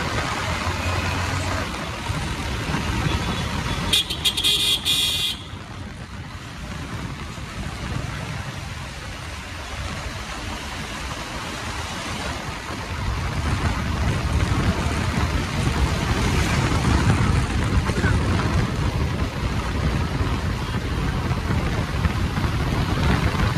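Motorcycle on the move in traffic: steady engine, tyre and wind noise. A vehicle horn toots briefly about four seconds in. The low rumble grows louder a little past halfway.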